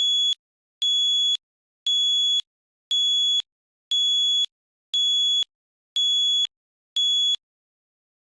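Fire alarm sounding eight high-pitched beeps, each about half a second long, about one a second, then it stops a little over seven seconds in.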